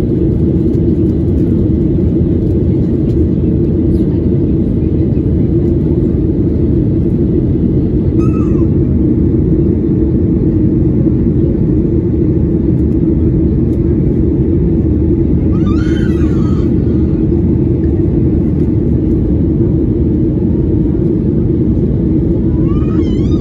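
Steady, loud rumble of an airliner cabin in flight: engine and airflow noise heard from inside the cabin, with a few short faint voice-like sounds over it.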